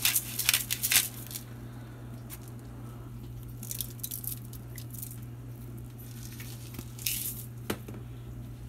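Pepper mill grinding in quick bursts, most in the first second or so, with a few more short grinds around four and seven seconds in and a small click near the end.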